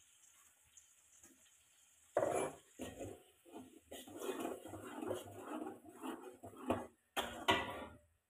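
Metal spatula scraping and knocking against a wok as its contents are stirred, starting about two seconds in, with a few sharper knocks near the end.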